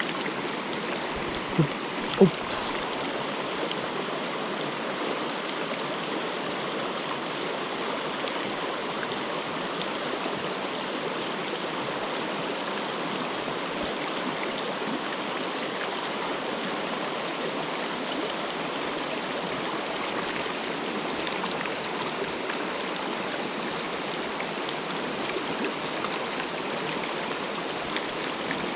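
Mountain stream water rushing over rocks, a steady even flow.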